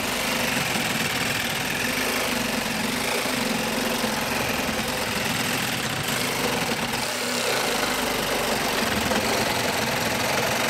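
TackLife 12-volt mini reciprocating saw running steadily, its blade cutting back and forth through a 4x4 wooden post.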